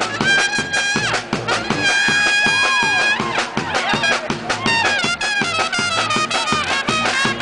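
Music played by brass instruments over drums: two long held brass notes in the first three seconds, then quicker moving phrases, with steady drum hits underneath.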